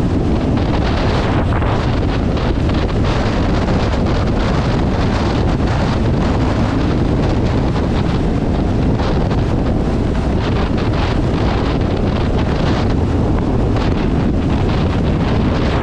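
Loud, steady wind rush over the microphone of a handlebar-mounted camera on a motorcycle moving at road speed.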